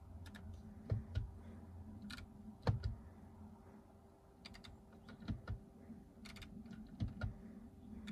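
Irregular clicks from the car's iDrive control knob being turned and pressed to scroll through the dashboard menus, over a faint steady hum.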